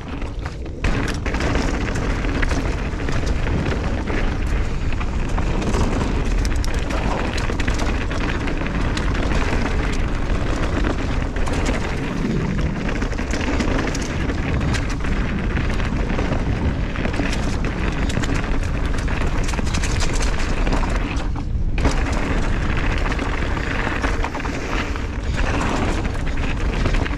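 Wind rushing over a helmet- or body-mounted camera microphone, with tyres rumbling and rattling over a dirt trail as a mountain bike descends at speed. The noise is steady and heavy in the low end, with a brief lull about three-quarters of the way through.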